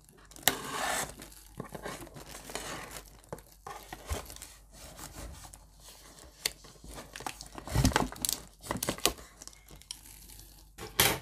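Clear cellophane wrap being slit with a box opener and torn off a cardboard box, crinkling and crackling in irregular bursts, with louder rips about eight seconds in and near the end.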